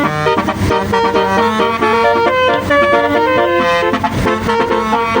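Multi-tone telolet (basuri) bus horn playing a quick melody, its notes changing in steps every fraction of a second without a break.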